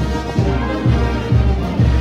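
Peruvian brass band playing, with trumpets and saxophones over a steady low drum-and-bass beat about twice a second.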